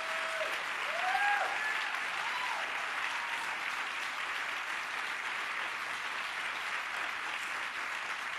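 An audience applauds steadily, with a few shouted whoops in the first couple of seconds.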